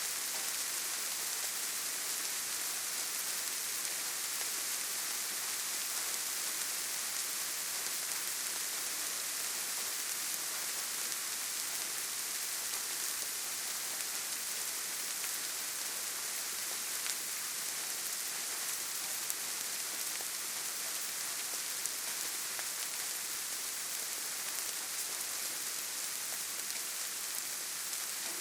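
Steady gentle rain falling softly onto leaves and grass, an even pattering hiss with a few separate drops ticking now and then.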